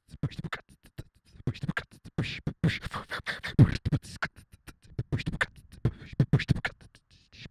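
Beatboxing: an uneven rhythm of mouth-made deep kick drums that drop in pitch, sharp clicks and snare-like hits, with short pauses between phrases.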